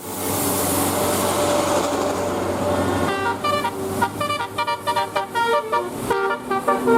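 Bus 'telolet' multi-tone musical horn playing a fast run of short, changing notes, starting about three seconds in, after a few seconds of steady rushing vehicle noise.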